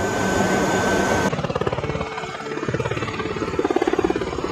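A C-130 transport's turboprop engines droning steadily with a thin high whine, heard from the cockpit. About a second in this cuts to a V-22 Osprey's tiltrotors beating in a fast, even rhythm as it hovers.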